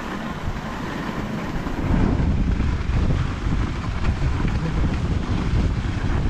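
Steady rushing noise of a dog sled on the move: wind buffeting the microphone over the hiss and rumble of the sled gliding on the snow trail. It grows heavier about two seconds in.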